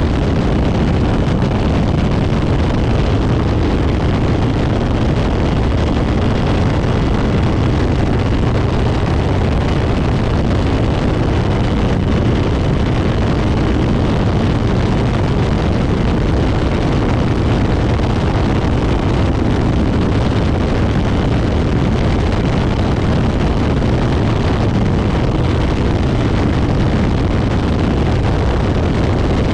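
125cc two-stroke shifter kart engine running flat out, heard together with heavy wind buffeting on the onboard camera microphone; loud and steady.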